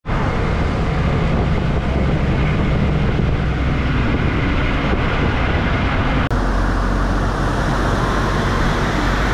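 Steady engine and road noise of a moving KSRTC bus, heard from inside the bus. About six seconds in the sound breaks off for an instant, and a deeper rumble carries on underneath.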